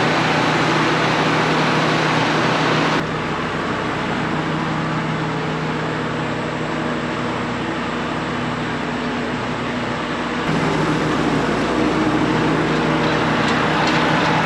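A combine harvester's diesel engine running steadily. The sound drops abruptly about three seconds in and rises again abruptly near ten seconds.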